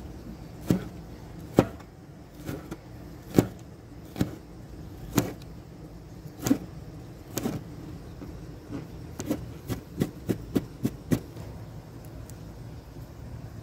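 Irregular sharp clicks and knocks from kitchenware being handled on a glass-topped table, bunching into a quick run of clicks about ten seconds in. A low steady rumble runs underneath.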